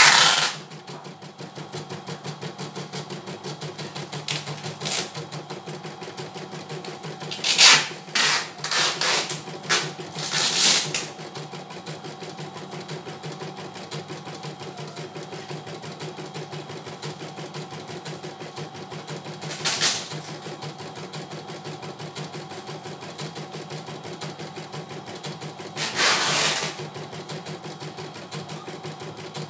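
CNY E900 computerized embroidery machine stitching a design in its hoop, the needle going at a steady, rapid rhythm over a steady motor hum. A few short, louder bursts of noise break in, a cluster of them about a third of the way through and another near the end.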